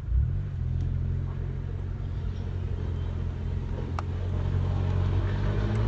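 Volkswagen Golf GTI Mk5's engine running with a steady low drone, and one sharp click about four seconds in.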